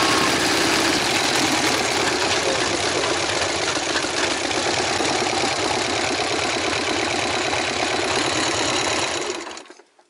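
Harley-Davidson Sportster's V-twin engine running at low speed as the motorcycle rolls slowly into a car park and stops. The engine sound cuts off shortly before the end.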